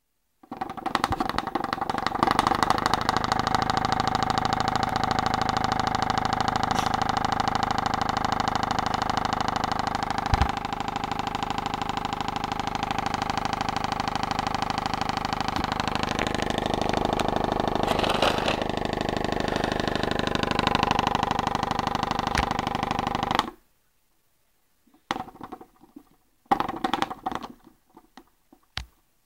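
Homemade free-piston Stirling engine running, its piston oscillating fast with a steady rapid mechanical rattle. The sound cuts off suddenly near the end and then comes back only in a few short bursts.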